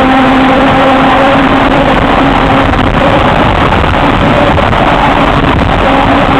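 Wind rushing over the microphone on a moving electric bike, with the steady hum of its alternator drive motor. The hum fades a little before halfway and comes back near the end.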